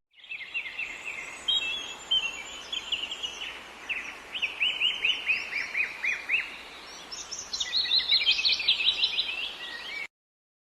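Songbirds singing and chirping, with runs of quick downward-sweeping notes and trills, over a steady faint outdoor hiss. It cuts off abruptly just before the end.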